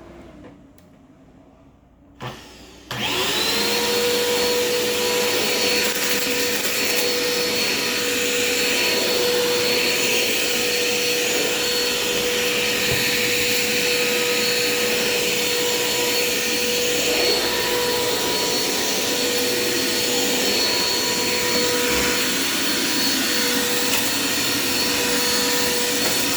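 Dirt Devil Quick Power vacuum cleaner switched on with a click about two seconds in; its motor spins up in a quick rising whine and then runs at a steady pitch with a constant high whine over a rush of air.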